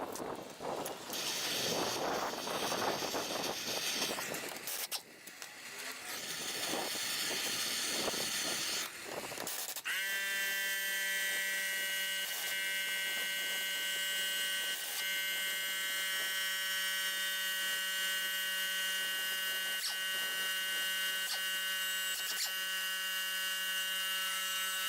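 Irregular handling and rustling noises, then about ten seconds in a small electric motor starts and runs with a steady, even buzz.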